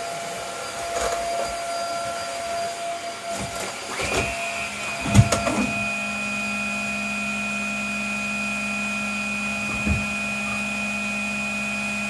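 Upright vacuum cleaner motor running with a steady whine. Its pitch shifts about four seconds in, then a few thumps come at about five seconds, the loudest moment. The whine then settles with a low hum under it, and there is one more small thump near the end.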